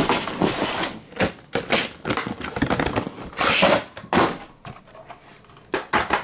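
Hard plastic of OtterBox Defender iPad cases clicking, snapping and crackling as the cases are handled and popped open. There is a quick run of clicks and snaps for the first few seconds, then a few more near the end.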